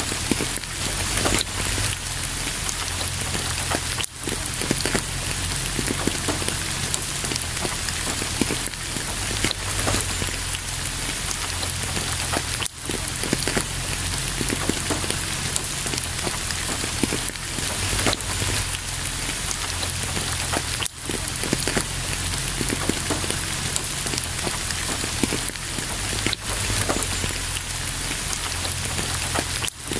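Steady heavy rain: a constant hiss with many close drops ticking through it. It dips out briefly a few times.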